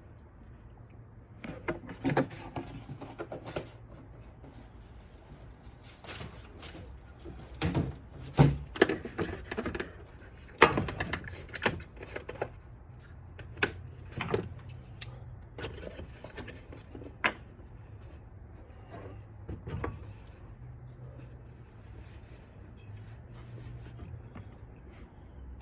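Irregular knocks and clicks, clustered and loudest about a third of the way in, then thinning out, over a faint low steady hum.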